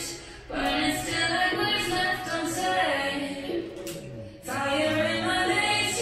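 A song with a woman singing a slow melody over a sparse accompaniment. The singing breaks off briefly just after the start and again about four seconds in.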